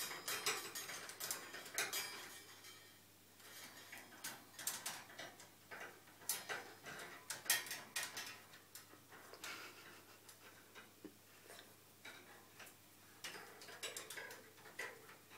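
Quaker parrot building, working a piece of material into place with its beak: irregular sharp clicks and taps with softer rustling in between.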